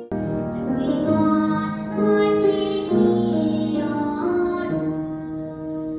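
A young vocal student singing with piano accompaniment, held sung notes that shift in pitch every second or so; the song starts abruptly at the very beginning, as if cut in.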